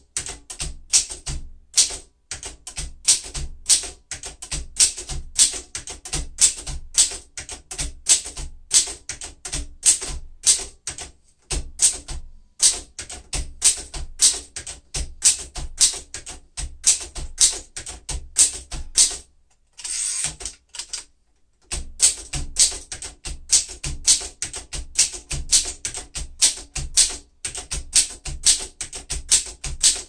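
1940 Royal Signet manual typewriter being typed on steadily: a quick run of key strikes and typebars hitting the platen, with a short pause about two-thirds of the way through before the typing resumes.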